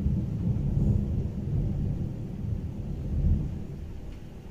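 Thunder from a severe thunderstorm: a long low rumble that swells again about three seconds in and fades toward the end.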